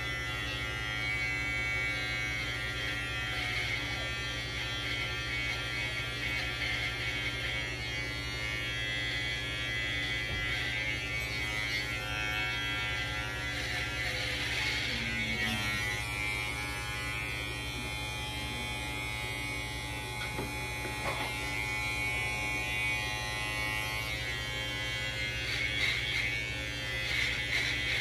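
Electric hair clippers running with a steady buzz as they cut hair, the sound growing rougher and hissier now and then.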